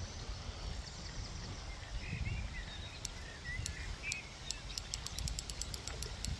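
Riverbank ambience: a steady low rumble, a bird chirping a few times about two to four seconds in, and a quick run of faint high ticks through the second half.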